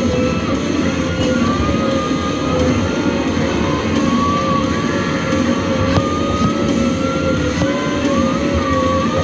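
Rock music plays over the steady running of a logging harvester's engine and hydraulics, with a whine that wavers slowly in pitch as the Waratah processing head works logs.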